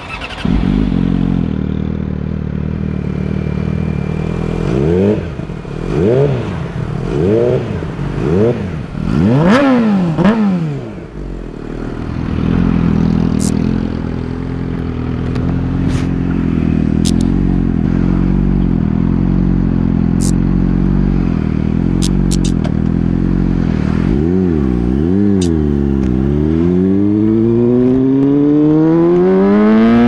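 Yamaha YZF-R6's inline-four with an aftermarket SC-Project exhaust idling, blipped in a run of quick throttle revs about five seconds in that ends in one higher rev, then settling back to a steady idle. Near the end it is blipped twice more and pulls away, the engine note climbing steadily under acceleration.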